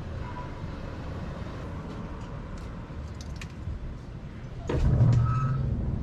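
Low, steady rumble of motor vehicles in a street. Nearly five seconds in, a louder engine drone with a steady low pitch comes in suddenly, as a vehicle passes close by.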